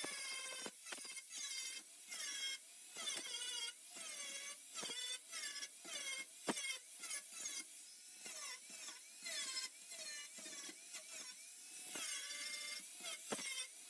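A small grinder smoothing plug welds in a sheet-metal car floor, its whine dipping and rising in short repeated passes as it bites the metal and lifts off.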